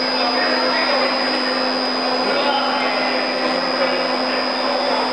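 Steady machine hum with a constant high whine over a hiss.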